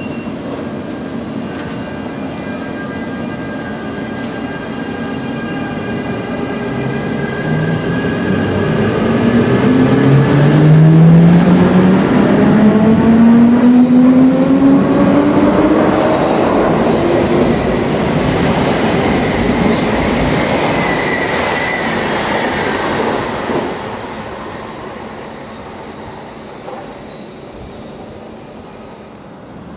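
Electric train rumbling past on the rails, loudest about halfway through, with a motor whine that rises steadily in pitch as the train gathers speed. The rumble dies away over the last few seconds.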